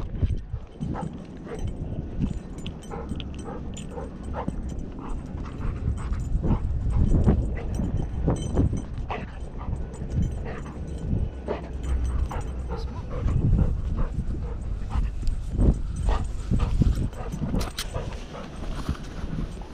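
Golden retriever breathing hard and on the move, heard close from a camera strapped to its back, with irregular thuds and knocks from its paws and the harness mount.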